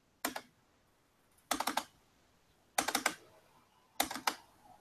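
Computer keyboard keys tapped in four short bursts of a few quick keystrokes each, a little over a second apart.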